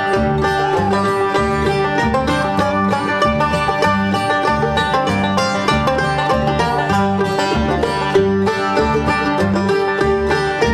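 Instrumental break of a country song: fast banjo picking over a steady bass, with no singing.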